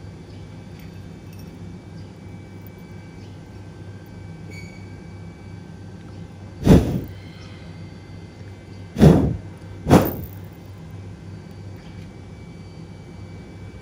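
Steady low background hum, broken by three short, loud thumps: one about halfway through, then two more close together a couple of seconds later.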